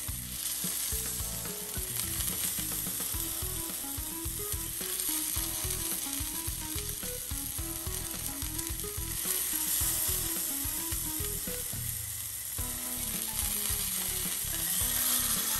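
London broil sizzling as it sears in hot oil and butter in a cast iron skillet, turned onto its edges with metal tongs to brown them.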